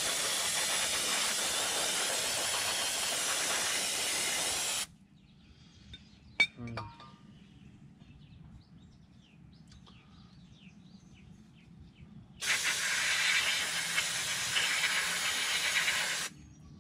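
Aerosol brake cleaner spraying with a steady hiss in two long sprays, the first stopping about five seconds in and the second starting about twelve seconds in. A few light clicks and taps are heard between them.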